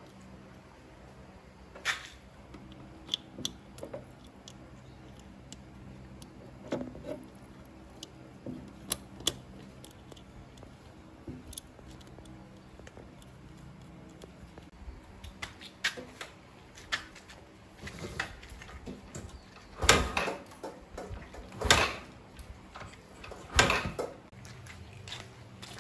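Hand tools and metal parts being handled during repair work: scattered light clicks and knocks, with three louder knocks in the last several seconds.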